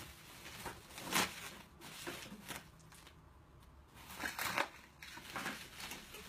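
Packaging being handled and opened: a few separate crinkling, rustling noises, the loudest about a second in, with a quieter stretch before more near the end.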